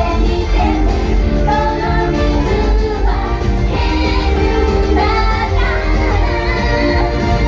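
A J-pop idol song played live: female voices singing over a loud pop backing track with heavy bass.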